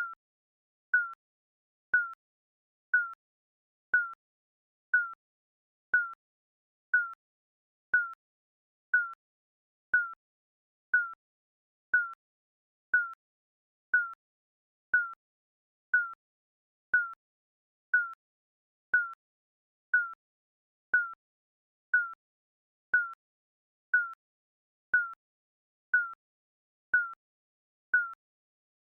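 Digital countdown timer beeping once a second: a short, high electronic beep at each tick, with silence between.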